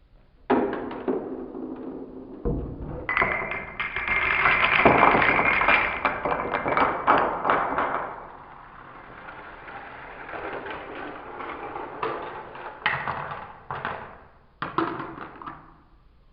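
Rube Goldberg chain reaction: a marble rolls along a plastic track, then a long row of dominoes topples in a dense clatter of clicks. After that come scattered clicks and a few sharper knocks as a toy car rolls down its track.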